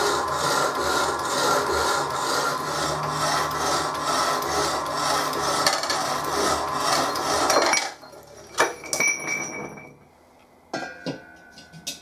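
Power hacksaw cutting through a steel tube, its blade rasping back and forth about twice a second over a low motor hum. The sawing stops about eight seconds in and is followed by a few sharp metal clinks and knocks, one of them ringing.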